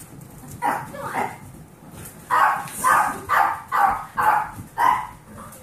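Small dog barking repeatedly in play: a couple of barks, then a run of six about two a second from about two seconds in.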